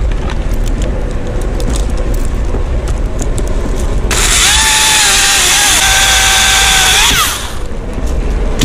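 A top-handle chainsaw is opened up to full throttle about four seconds in and cuts through a loblolly pine limb for about three seconds. Its pitch rises briefly as the chain comes through the cut, then drops off.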